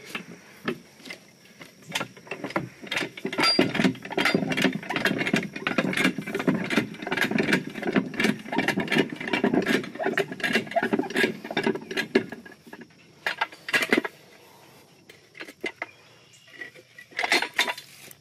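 Simplex lever-operated rack jack being pumped by its handle, its metal ratchet parts clattering and clanking with each stroke as it lifts the building's frame. The pumping stops about twelve seconds in, leaving a few separate metallic knocks, with a short burst of clanks near the end.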